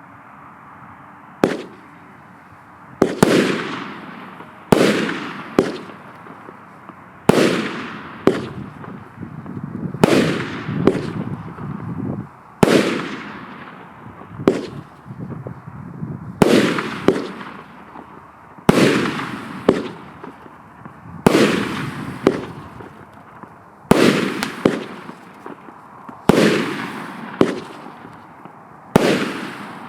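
Consumer firework cake, a 25-shot 1.2-inch-calibre battery (Joker Fireworks 'Tantsuy' JF MC30-25/01), firing shot after shot: about a second and a half in the first bang comes, then pairs of sharp reports, a launch and its aerial burst, repeat every one and a half to two and a half seconds.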